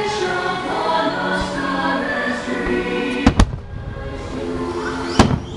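Fireworks show music with singing plays. Then aerial firework shells burst over it, with two sharp bangs in quick succession about three seconds in and another near the end.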